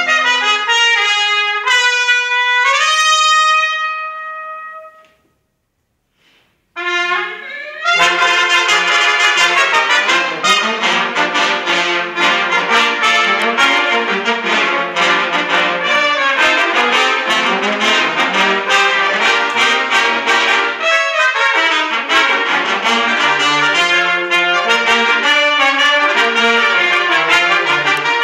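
Brass sextet of five trumpets and a trombone playing live: a few upward-stepping trumpet phrases die away into a brief silence about five seconds in, then, after a short entry near seven seconds, the whole ensemble plays a busy, fast passage with many quick notes.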